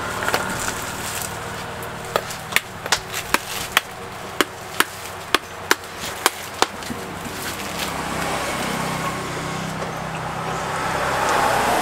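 A blade chopping into a coconut: about a dozen sharp strikes, roughly two to three a second, starting about two seconds in and stopping a little before the halfway point, over steady background noise.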